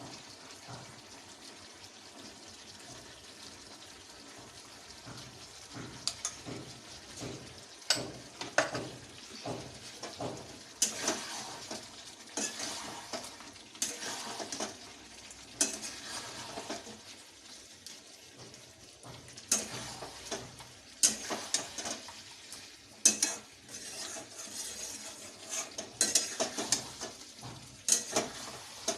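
A spoon scraping and clinking in a pan as a curry masala is stirred, over a low frying sizzle. The stirring strokes start about six seconds in and come in irregular bursts.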